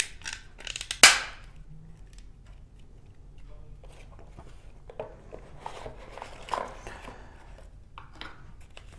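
A sharp plastic click about a second in as the thermostat is worked free of its plastic part, with a few smaller clicks around it. Later comes soft paper and cardboard rustling as the folded user manual is pulled out of the box.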